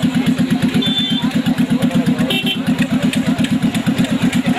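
Small van's engine idling close by, a loud, even, rapid chugging that holds steady throughout.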